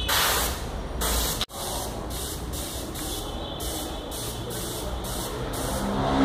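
Air spray gun hissing, fed by a homemade air compressor while paint is sprayed: two strong bursts in the first second and a half, then shorter, evenly spaced spurts of spray.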